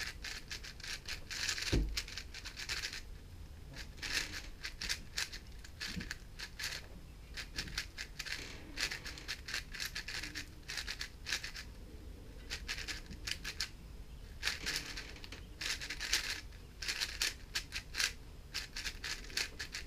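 GAN 460 M 4x4 speedcube being turned fast during a solve: bursts of rapid plastic clicking and clacking as the layers snap around, with short pauses between bursts. A soft thump comes about two seconds in.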